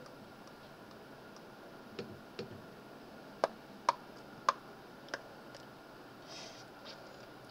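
Computer mouse clicking, about half a dozen separate clicks at uneven intervals in the middle of the stretch. A faint steady high tone runs underneath.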